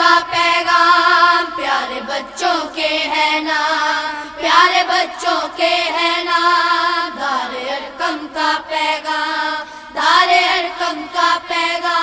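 Background music: an Urdu school song sung by a single high voice, in long held notes with short breaks between phrases.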